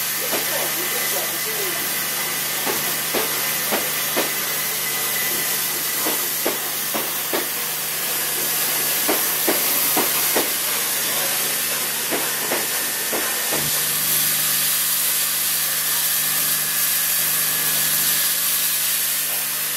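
Steam hissing steadily from the standing Peppercorn A1 Pacific steam locomotive 60163 Tornado, over a steady low hum. A string of short, light clicks, about half a second apart, comes through it from the first few seconds until about two-thirds of the way in.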